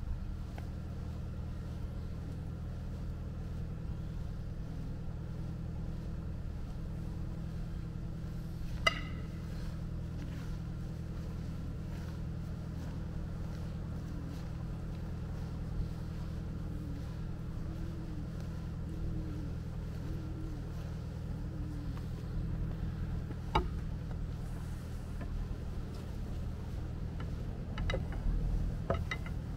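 Steady low mechanical drone of the urban surroundings, with a few short sharp clicks about 9 and 23 seconds in.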